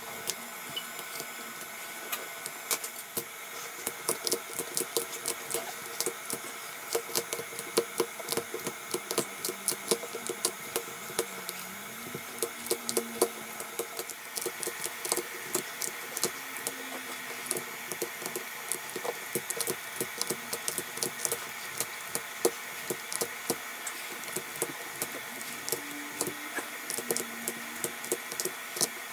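Small metal and plastic hand tools scraping and clicking against an iPhone 8 Plus's cracked glass back, with many irregular sharp ticks over a steady hum.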